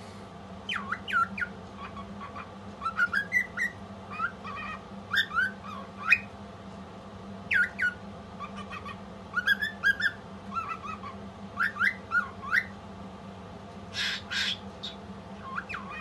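A female cockatiel singing: phrases of short whistled chirps that sweep quickly up and down, with a harsher squawk near the end.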